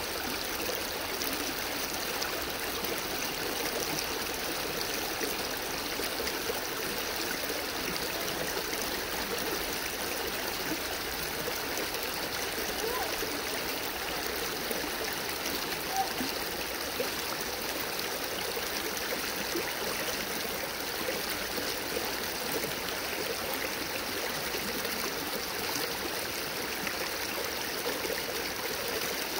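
Small rocky stream flowing over stones and shallow riffles: a steady rush of running water.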